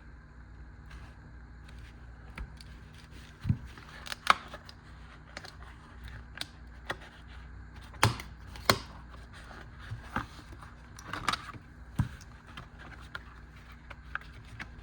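A small pocket tool being handled and worked: irregular sharp clicks and taps as its two-stage mechanism is opened and closed, over a steady low hum.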